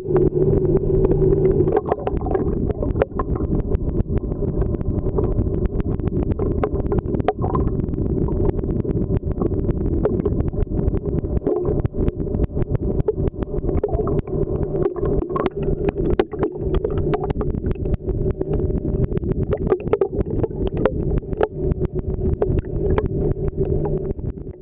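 Underwater sound picked up by the camera: a steady low droning hum with many scattered sharp clicks and crackles throughout.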